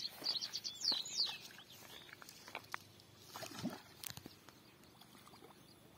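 A bird chirping rapidly in a quick run of high calls near the start, then scattered small clicks and a light splash of water about four seconds in, over a faint outdoor background.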